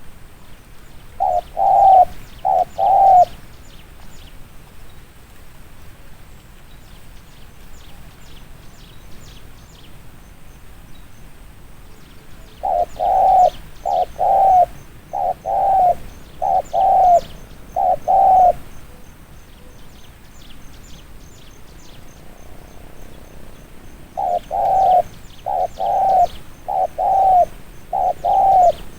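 Spotted dove cooing in quick bouts of short, evenly spaced coos: three near the start, then a longer run of several in the middle and another near the end. Faint chirping of small birds fills the gaps.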